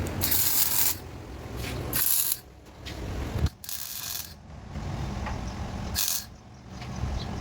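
CO2 (MIG) welder laying short tack welds on car chassis steel: about four bursts of hiss, each under a second, with pauses between.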